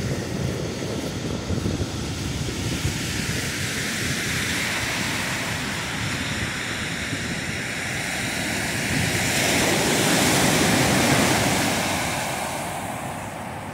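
Ocean surf breaking and washing up a sandy beach, a steady hiss that swells to its loudest about two-thirds of the way through and then eases off, with wind rumbling on the microphone.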